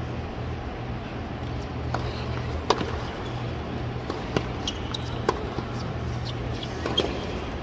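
Tennis rally on a hard court: sharp pops of racket strings hitting the ball and of the ball bouncing, roughly once a second, the loudest about three seconds in. A steady low hum from the quiet stadium crowd runs behind.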